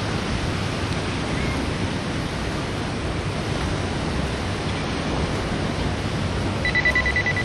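Steady wash of ocean surf, with wind on the microphone. Near the end a high, steady electronic beep starts and holds.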